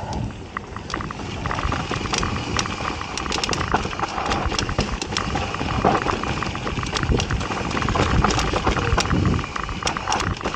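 Mountain bike descending a dry dirt trail: knobby tyres rumbling over the dirt, with a steady stream of sharp rattles and clicks as the bike clatters over bumps.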